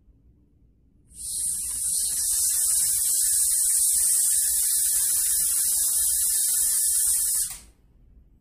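Steady air hiss from the load rig, starting about a second in and cutting off about six and a half seconds later, while the rig loads the scales from zero to 100 kg.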